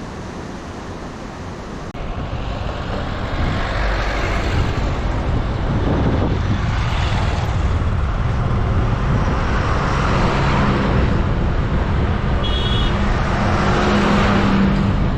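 Riding on a road: wind rushing over the microphone with vehicle engine and road noise, growing louder about three seconds in. A steady engine hum rises in pitch near the end.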